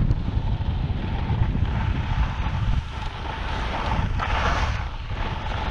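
Wind buffeting the microphone of a camera skiing at speed, over the hiss of skis sliding on groomed snow. A louder scraping hiss comes about four seconds in as the skis slow.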